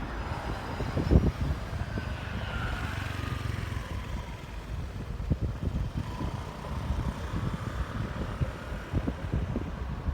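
A Keikyu electric train running nearby, with a faint motor whine that rises and falls, under wind buffeting the microphone.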